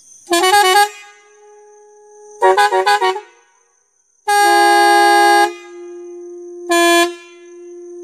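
Hexatone multi-tone electric horn on a modified three-wheeler sounding a series of blasts: a quick warbling run of notes, another run about two seconds later, a long steady chord lasting over a second, and a short blast near the end. A fainter steady tone holds between the blasts.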